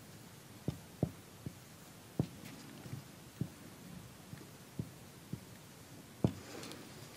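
Marker writing on a whiteboard: about ten soft, irregular taps as the tip meets the board, with a faint scratch of a stroke now and then.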